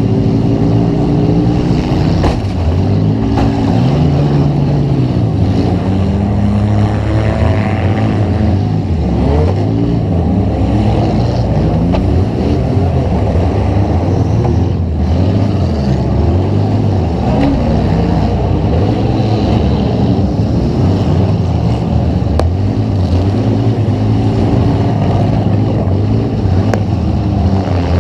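Demolition derby car's engine running hard, revving up and down, heard from on board the car. There is a sharp knock about two seconds in.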